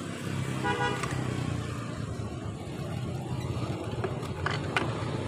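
A motor vehicle engine runs steadily close by, most like a passing motorcycle. A few light metal clicks come near the end as a scooter's rear CVT clutch pulley and belt are pushed onto the shaft by hand.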